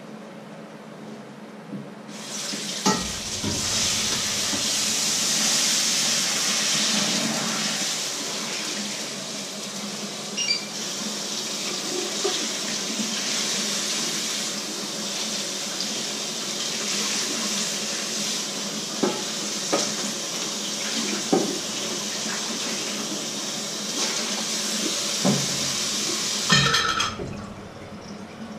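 Kitchen tap running into the sink while a frying pan is rinsed under it, with a few knocks of the pan against the sink. The water comes on about two seconds in and goes off near the end with a short clatter.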